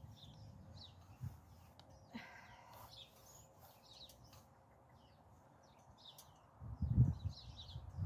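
Small birds chirping, faint, with a low rumble that comes in near the end.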